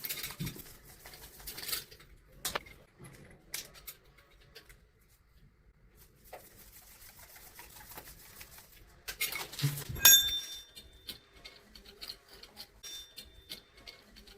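Small metal tools and fittings being handled, giving scattered clicks and knocks. About ten seconds in there is one sharp metallic clink that rings briefly.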